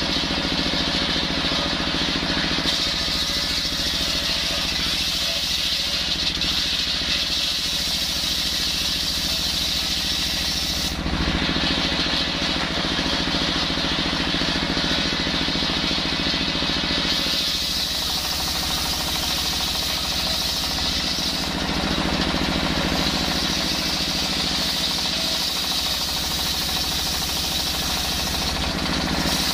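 Stationary diesel engine running steadily, belt-driving a large circular saw blade as it rips lengthwise through a hard coconut-palm log. The saw's high cutting noise sits over the engine's rhythmic beat.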